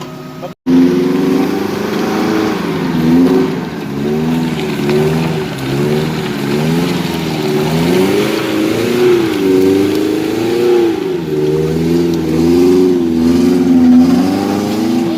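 Off-road 4x4 engine revving up and down under varying throttle, its pitch rising and falling every second or so. It starts abruptly just after the beginning.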